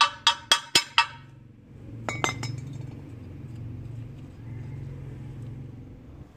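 Sharp metallic clinks with a bright ringing tone as steel gear parts knock against a thin sheet-metal box being packed with carbon for pack carburizing: a quick run of about five in the first second, then two more about two seconds in.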